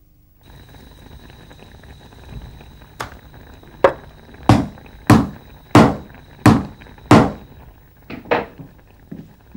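A run of sharp knocks: one light knock, then six loud evenly spaced ones, about three every two seconds, then a few lighter knocks near the end, over a faint steady high hum.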